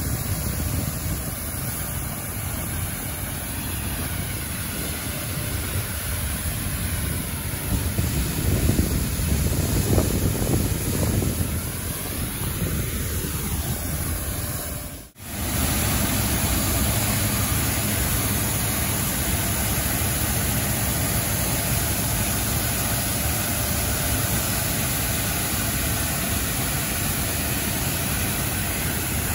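Mechanical street sweeper running, its engine going steadily while its rotating brooms scrub grit off milled asphalt, as a steady noisy rumble. It swells for a few seconds a third of the way in, and the sound drops out abruptly for an instant about halfway.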